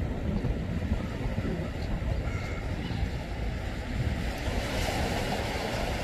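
Small sea waves washing onto a seaweed-covered shore, with wind buffeting the microphone as a low rumble. A wave breaks along the shoreline with a rising hiss near the end.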